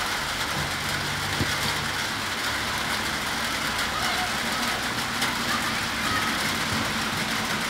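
A steady low hum like a vehicle engine running, over continuous background noise.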